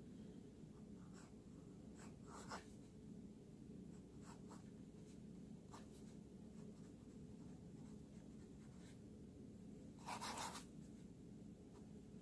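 Fountain pen nib scratching faintly on paper in short cursive strokes, with one louder, longer stroke about ten seconds in, over a faint steady low hum.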